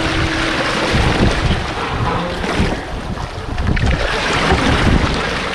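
Wind on the microphone and the sea rushing past a sailboat under way, a loud, steady rush of noise.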